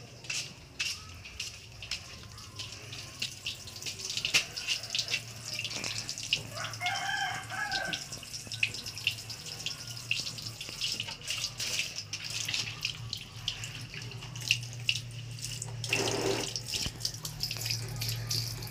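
Water splashing and sloshing in a plastic basin as a small dog is scrubbed by hand in soapy water, with quick irregular splashes starting about four seconds in.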